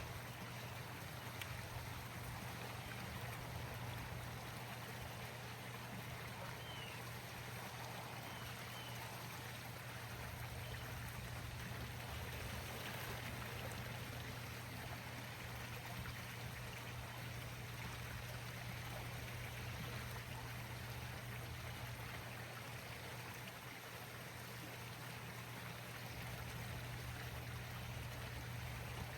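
Steady rushing water noise with a constant low hum underneath.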